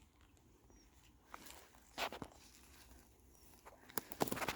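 Footsteps on a wet outdoor path: one step about two seconds in and a quick run of steps near the end, over a faint background.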